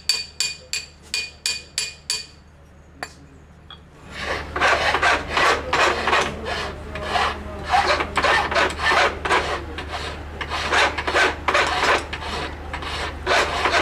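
Hammer blows on metal with a clear ringing tone, about six in quick succession, in the forging of a silver ring. After a short pause comes a steady rhythm of file strokes rasping across the metal, about two or three a second.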